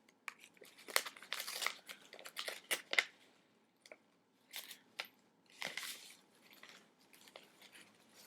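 Paper and plastic packaging crinkling and tearing as it is pulled open by hand: a quick run of crackles and rips in the first three seconds, then a few separate rustles and softer handling.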